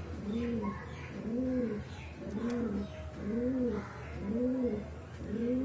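Pigeon cooing: a low coo that rises and falls in pitch, repeated about once a second.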